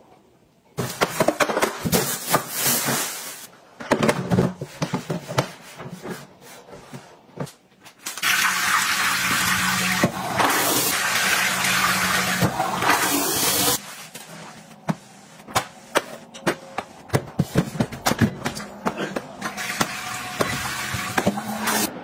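A toilet flushing: a loud steady rush of water lasting about six seconds through the middle. Before it, a few seconds of water noise and clattering at a washbasin; after it, quieter scattered clicks and knocks.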